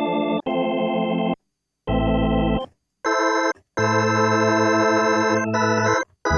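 Kurzweil K2000 synthesizer playing an organ-like factory program dry, with no effects: a series of held chords that start and stop abruptly, with short silent gaps between them. One chord about two seconds in is heavy in the bass.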